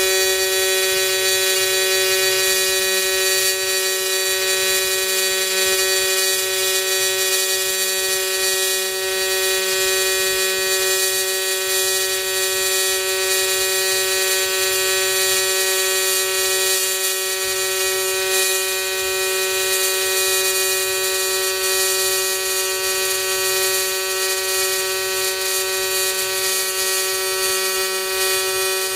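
AC TIG welding arc on thin aluminum from an Everlast 210EXT set to a triangle waveform at about 200 Hz AC frequency, buzzing steadily with a strong, even pitch as the bead is run.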